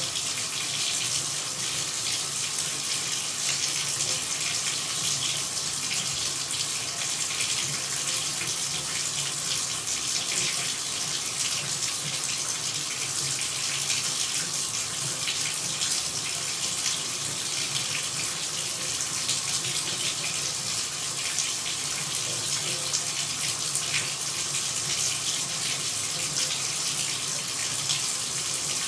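Running water pouring in a steady, even hiss that does not change.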